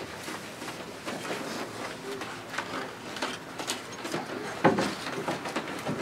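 Brush working oil paint on a stretched canvas: irregular short taps and scrapes, with one louder knock a little before the end.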